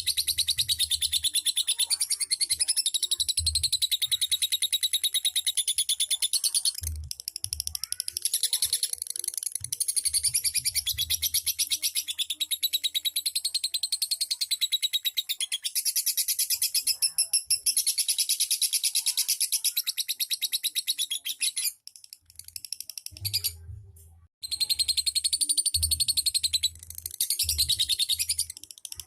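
Lovebird singing a long, rapid, high-pitched chattering trill (the 'ngekek' song), broken by short pauses about seven seconds in and again around twenty-two seconds.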